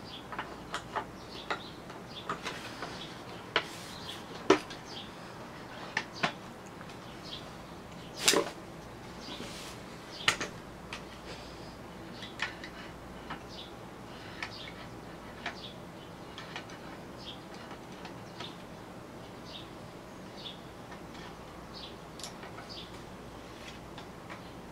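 Bamboo laptop bed tray being handled: its wooden parts knock and click together in scattered light taps, with a few sharper knocks about four and a half and eight seconds in.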